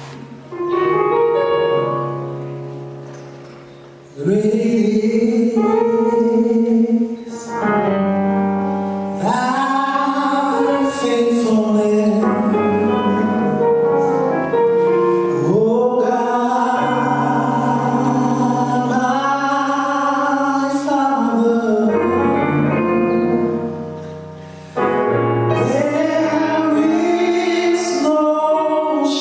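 Gospel music: a choir sings long-held chords in phrases over piano, after a piano chord opens the passage.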